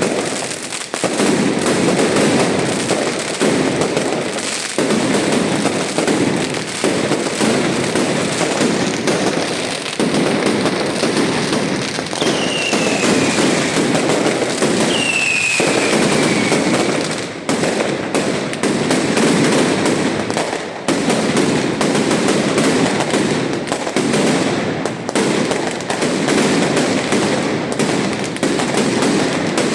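Fireworks going off in a dense, continuous barrage of rapid bangs and crackling. Two whistling rockets sound about twelve and fifteen seconds in, each whistle falling in pitch.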